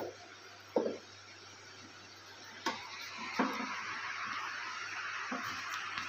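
A few short, sharp knocks and clicks of tools and parts being handled on a washing machine's plastic base: one about a second in, then others near three and five seconds. A steady hiss comes up after the knock near three seconds and carries on.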